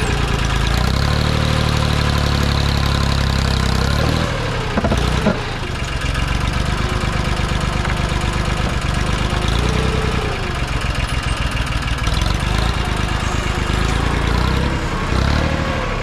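Case International 275 compact tractor's engine running under load while its front-end loader scoops dirt out of a dump trailer. The engine note rises and falls several times as the loader works, with a brief knock about five seconds in.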